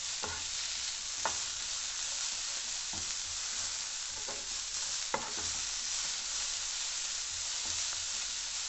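Sliced onion, capsicum and tomato sizzling steadily on high heat in a non-stick frying pan while a wooden spatula stirs them, with a few sharp knocks of the spatula against the pan.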